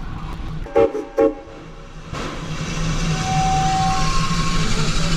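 Whistle of a 1928 Lima Shay geared steam locomotive: two short toots about half a second apart, about a second in. From about two seconds in, the train's steady running noise follows.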